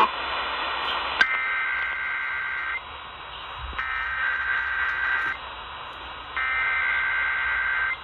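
Three Emergency Alert System SAME header data bursts, the warbling two-tone digital squawks that open an EAS test. Each lasts about a second and a half, with short hissy gaps between. They are heard over AM radio through a small portable radio's speaker, with a steady AM hiss underneath.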